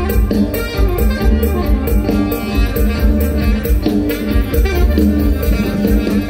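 Live instrumental mor lam band music, with a drum kit keeping a steady quick beat under melodic instruments.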